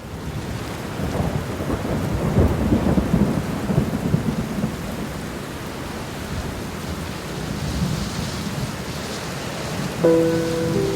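Steady rain hiss with a long roll of thunder that builds about a second in, is strongest around two to four seconds, and fades away. Near the end, soft held musical notes come in over the rain.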